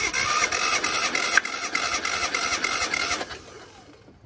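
Starter motor cranking the 1994 Geo Metro XFI's 1.0-litre three-cylinder engine with the spark plugs out, for a compression test on cylinder three: a whine with an even beat of about four pulses a second, stopping about three seconds in. The cylinder builds to about 150 psi, even with the other two.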